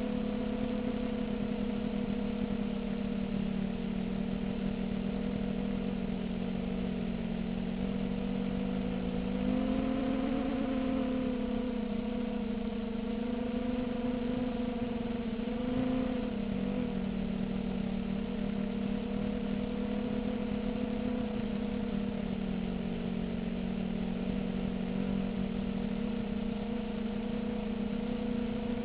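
Small FPV quadcopter's brushless motors and 5-inch propellers whirring steadily in flight, the pitch rising briefly about a third of the way in and again a little after halfway as the throttle comes up.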